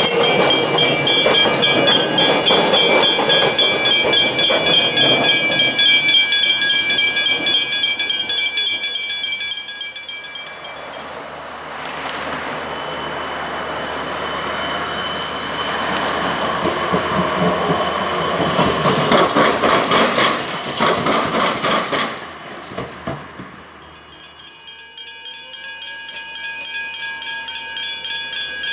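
Level crossing warning bells ringing steadily while a Metro suburban electric train passes through the crossing; the bells stop about ten seconds in. Rolling wheel noise with rapid clattering follows, and near the end the bells start ringing again at about two strokes a second as another train approaches.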